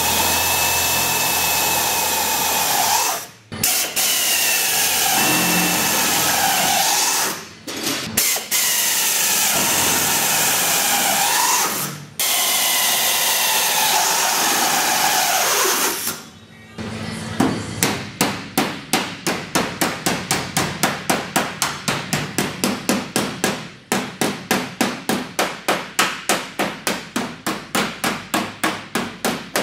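A handheld power tool runs in several bursts on the steel car body, its pitch dipping and rising as it is loaded, with short stops between bursts. About halfway through it gives way to steady hammer blows on the steel bulkhead panel, about three a second.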